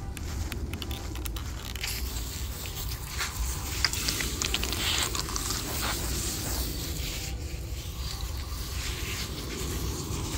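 Garden hose spray nozzle spraying water onto the straw mulch and soil of a raised bed to wet it before sowing, a steady spray hiss with scattered crackles, picking up about two seconds in.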